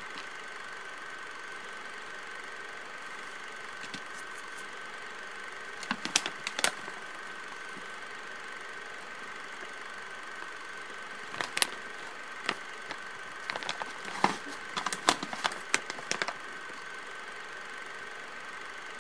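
Plastic jerky pouch crinkling in short clusters of crackles as it is handled and turned over, one cluster about six seconds in and a longer one from about halfway on. Underneath runs a steady faint hum with a thin high whine.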